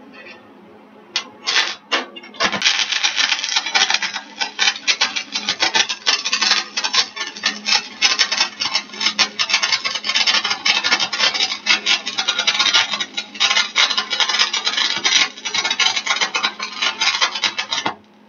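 Stick-welding arc on steel pipe and plate: a few short crackles as the rod is scratched to strike the arc, then steady arc crackling as a fillet bead is run for about fifteen seconds, cutting off abruptly when the arc is broken near the end.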